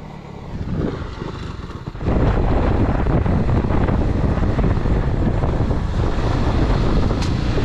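Motorcycle running at riding speed with heavy wind noise on the microphone. The sound jumps suddenly from a quieter stretch to a loud, steady rush about two seconds in.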